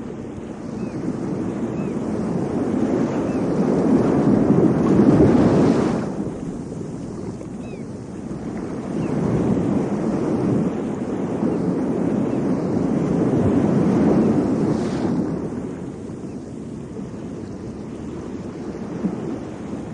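Rushing noise of waves and wind on the microphone, swelling twice and falling away sharply after each swell.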